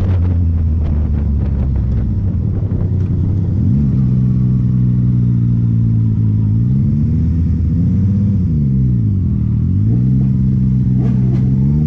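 Sport motorcycle engine heard from on board while riding, its revs dropping and rising several times. Wind rushes over the microphone in the first couple of seconds.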